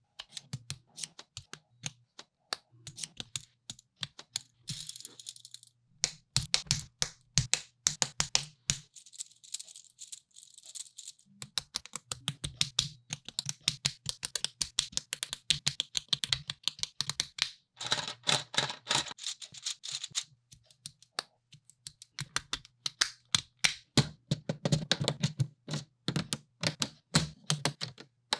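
Plastic building bricks being fitted and snapped together by hand: quick runs of small sharp clicks and snaps, with brief stretches of loose pieces rattling.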